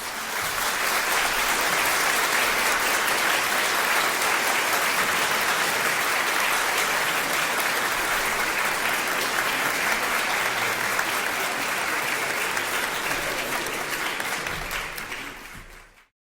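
Audience applause: a steady, dense clapping that fades out near the end.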